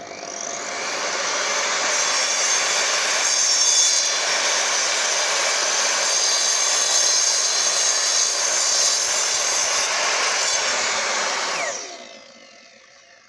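Evolution R255SMS multi-material mitre saw starting up, then running steadily for about ten seconds as it cuts through pallet wood with nails hammered into it. It winds down near the end once the motor is switched off.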